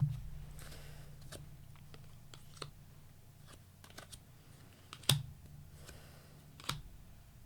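Tarot cards being handled and laid down on a table: a few sharp taps and clicks, the loudest about five seconds in, with soft rustling between them.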